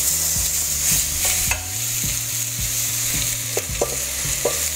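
Chicken pieces being scraped from a skillet into a pot of hot oil and toasting whole spices, sizzling steadily, with a few sharp scrapes and knocks against the pan's metal. A low steady hum runs underneath.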